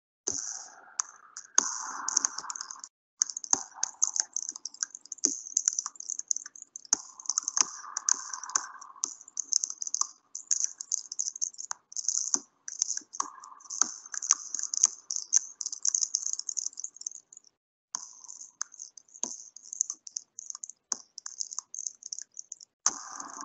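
Irregular clicking and rattling, dense and uneven, with several short breaks of silence.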